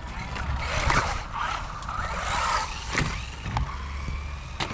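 Mini 1/18 RC buggy driving on skatepark concrete, its electric motor whining up and down with the throttle over a rushing tyre noise, with a few sharp knocks as it hits things.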